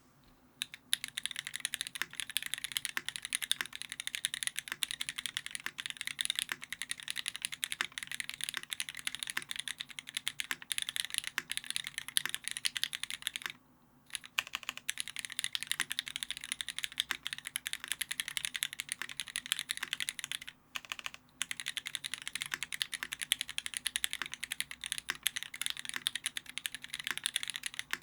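Fast continuous typing on a custom Keycult No.2 rev.1 mechanical keyboard with lubed, filmed vintage black (Cherry MX Black linear) switches on a brass plate and GMK keycaps. The keystrokes start just under a second in and run as a dense stream of clicks, with two short pauses, one near the middle and one about two-thirds of the way through.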